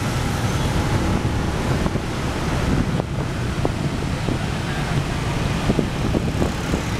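Wind noise on the microphone of a camera carried on a moving scooter, over the steady sound of motorbike and car traffic.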